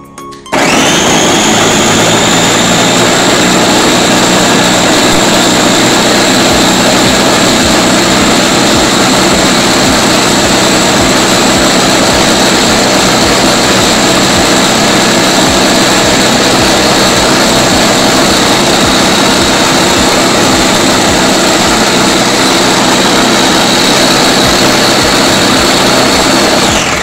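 Electric food chopper running at full speed, its motor whining steadily as the blade grinds shallots, garlic, candlenuts and tomato into a wet spice paste. The whine rises as the motor spins up about half a second in, and the motor cuts off at the very end.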